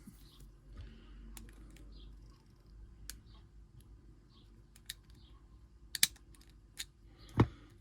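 Scattered small clicks and taps of a pin-tumbler padlock being handled and worked with its key, with a louder knock near the end.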